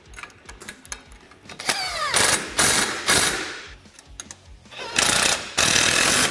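Cordless impact wrench running in about four short bursts as it fully tightens bumper mounting bolts. The first burst starts with a rising whine.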